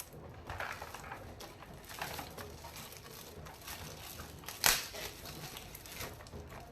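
Gift wrapping being crinkled and torn open by hand, a string of short rustles with one sharp, louder crackle about two-thirds of the way in.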